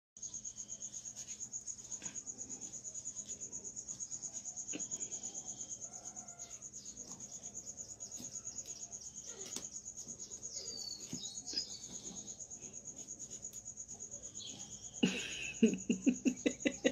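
Cricket chirping in a steady, high-pitched trill, with faint scattered clicks. Near the end comes a run of louder, quick pulses.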